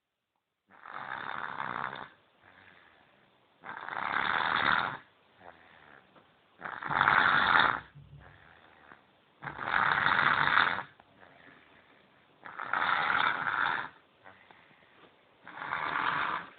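Baby snoring: six snores, each about a second long, coming about every three seconds.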